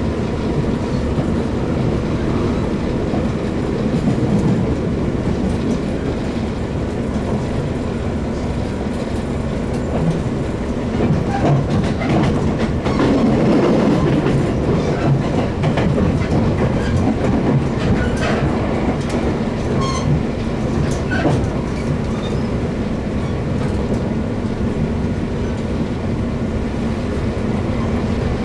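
Running noise of a JR West 117 series electric train heard from inside the car: a steady rumble with a constant hum, and wheels clicking over rail joints, the clicks thickest in the middle of the stretch.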